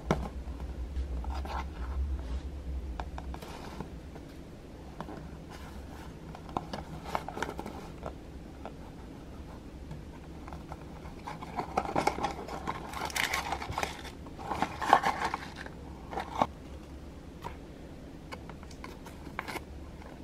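A small cardboard box being handled and opened by hand: clicks and scraping of fingers on card, with a busier, louder stretch of rustling and tearing about twelve to sixteen seconds in as the box is opened and its leaflet and foil packets come out.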